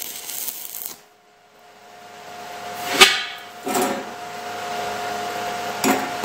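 A single loud, sharp knock about three seconds in, with lighter clatter before and after it, over a steady hum.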